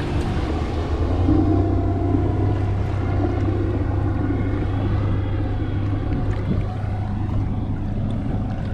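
Small fishing boat's engine running steadily at idle, a constant low hum.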